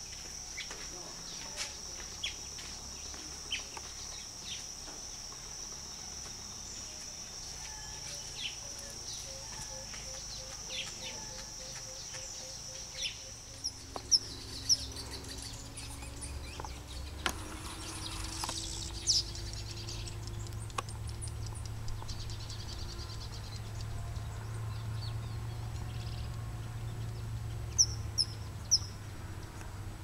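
Outdoor ambience of birds and insects: a steady high insect whine fills the first half, with short bird chirps scattered throughout. About halfway in a low steady hum sets in, and a few sharp, louder chirps stand out, including a quick cluster near the end.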